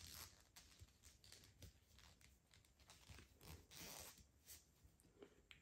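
Faint, irregular rustling and scraping of thick T-shirt yarn being drawn through stitches with a large plastic crochet hook, over quiet room tone.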